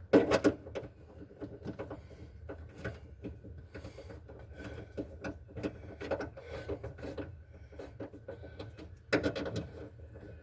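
Car parts being handled and refitted: scattered clunks, rattles and rubbing, with a louder cluster of knocks at the start and another about nine seconds in.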